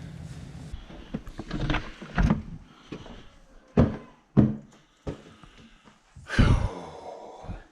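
A house door being opened and shut, heard as a series of separate dull thunks and knocks with a longer rushing, scraping sound near the end.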